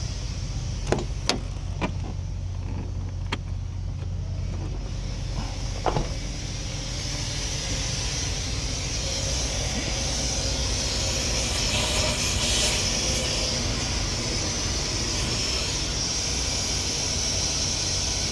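Compressed air hissing from a leak at a heavy truck's air-operated engine fan clutch, which the owner puts down to a blown gasket at a joint of the clutch. A low engine drone and a few sharp clicks come first, and the hiss grows louder from about a third of the way in and holds.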